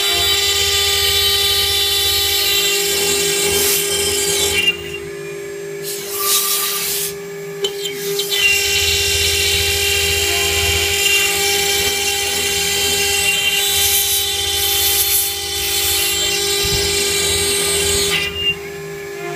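CNC router spindle running with a steady whine while its bit mills 5 mm ACM (aluminium composite panel), a harsh cutting hiss over the whine. The cutting noise drops out briefly about five seconds in, again about seven seconds in, and near the end, while the spindle whine carries on.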